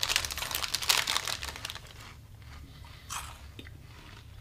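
Crunchy chewing of chocolate-coated protein puffs, loudest and densest in the first two seconds, with a short burst again after about three seconds. A plastic snack bag crinkles as well.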